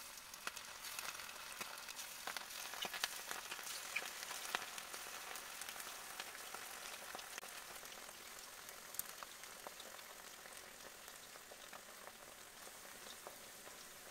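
Batter-coated chicken pieces frying in hot oil in a nonstick pan: a steady sizzle full of small crackling pops, a little louder in the first few seconds as more pieces are dropped in, then settling.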